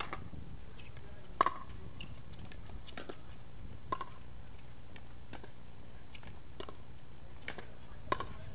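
Pickleball rally: sharp, hollow pocks of the plastic ball off the paddles and the court, about one a second, the loudest about a second and a half in and near the end.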